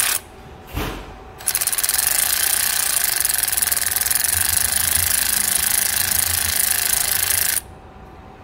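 Power ratchet running, its socket spinning a nut off the starter's wiring terminal. A couple of short clicks come first, then it runs steadily for about six seconds and stops abruptly.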